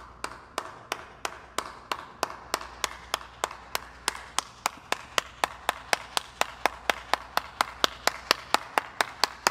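One person clapping slowly and steadily, about three claps a second.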